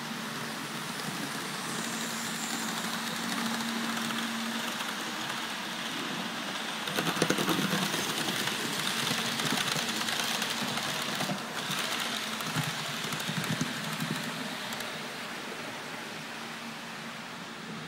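Model train hauled by a HAG electric locomotive running past close by: about seven seconds in the noise swells into a quick, dense clicking of small wheels over rail joints and points, which lasts several seconds and then fades, over a steady background hiss.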